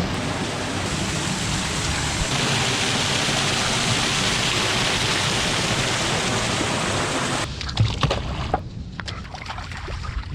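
Ocean surf washing on the beach, a steady rush of water that swells about two seconds in. It cuts off suddenly near the end, leaving a few light knocks.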